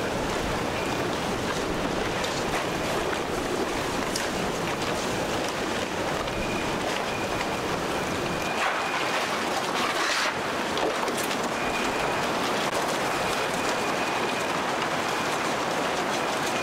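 Hurricane-force wind and driving rain making a steady rushing noise, with wind buffeting the microphone. A faint high tone comes and goes several times.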